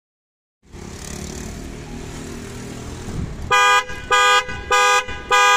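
Ford Transit pickup's horn sounding four short, evenly spaced toots, about half a second apart, over steady outdoor background noise.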